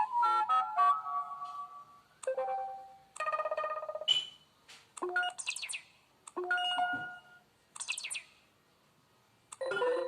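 A KAZAM Trooper2 mobile phone's speaker playing a run of short electronic message-alert tones one after another: about seven brief chimes and jingles, each a second or less, with short silences between them.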